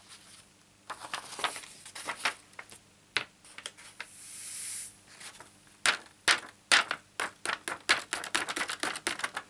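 Folded scrap paper being tapped with the fingers to shake loose embossing powder back into its jar: a run of sharp light taps and paper crackle, sparse at first, then quickening to about five or six a second in the second half. A soft hiss swells and fades about four seconds in as the powder slides off the paper.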